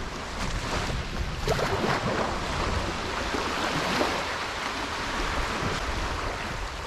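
Small Gulf waves washing up on a sandy shore, the surf noise swelling and easing, with wind rumbling on the microphone.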